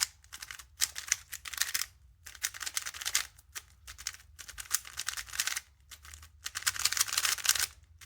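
Moyu Weilong Ferrocore speed cube being turned quickly by hand, its plastic pieces clacking in bursts of rapid clicks with short pauses between them, while fresh lube is worked into the mechanism.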